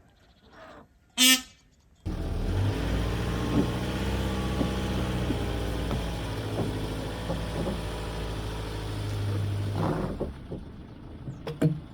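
Stihl 661 chainsaw engine running at a steady speed, cutting in abruptly about two seconds in and dropping away near the end. Just before it, a short, sharp call.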